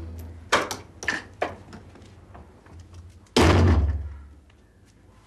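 Wooden door knocked and bumped a few times, then a loud heavy bang with a deep boom about three and a half seconds in, as a door is slammed or struck hard.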